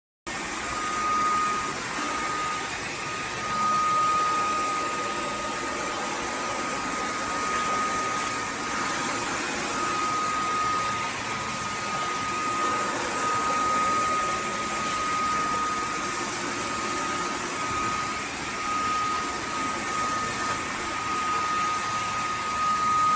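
Cordless wet-dry vacuum cleaner running steadily: a high motor whine over a steady rushing of air.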